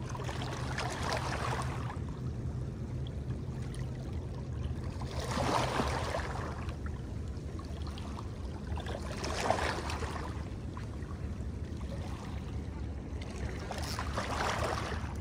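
Water washing in surges about every four seconds, over a steady low hum.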